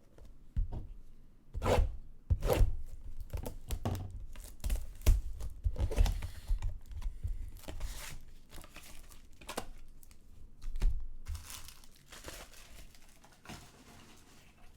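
Plastic wrapping being torn and crinkled by hand as a box of trading cards and its packs are ripped open, in a run of irregular tears and rustles.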